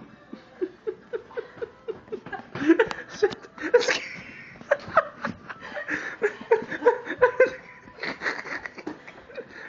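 People laughing in short, repeated pitched bursts, a few per second, mixed with rustling and knocks of handling noise.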